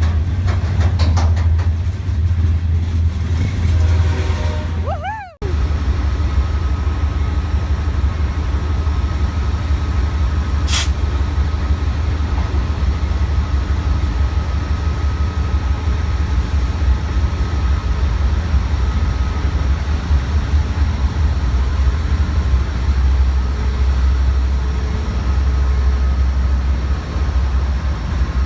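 Train at a station running with a heavy, steady low rumble and a faint steady whine above it, typical of a diesel locomotive. The sound breaks off abruptly about five seconds in and resumes at once, and a short sharp sound comes about eleven seconds in.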